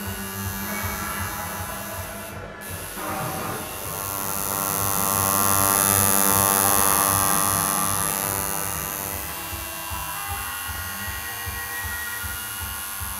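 Electric tattoo machine buzzing steadily as it inks a skateboard deck, growing louder toward the middle and easing off again.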